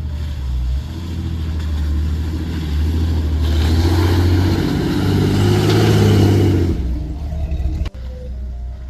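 4x4 vehicle engine running, with the revs and load building for a few seconds in the middle, then easing off. A sudden brief dropout near the end.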